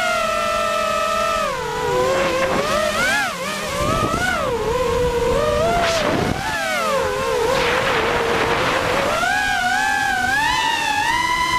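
Multirotor drone's motors and propellers whining, the pitch rising and falling with the throttle as it manoeuvres, then climbing and holding higher near the end. A brief rush of noise comes about six seconds in.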